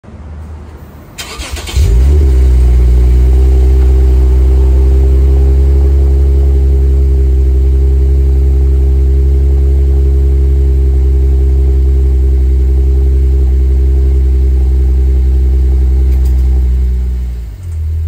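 Toyota Crown S180 V6 started at the exhaust tailpipe: a brief crank, the engine catches about two seconds in and settles into a steady idle with no abnormal noise. The sound drops away near the end.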